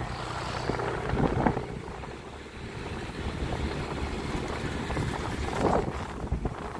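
Wind buffeting the microphone over the steady low rumble of a moving vehicle, with two louder gusts, one about a second and a half in and one near the end.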